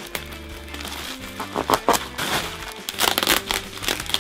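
Plastic packaging crinkling and rustling in the hands: a plastic mailer bag and bubble wrap being handled and unwrapped, loudest in clusters about one and a half seconds and three seconds in, over background music.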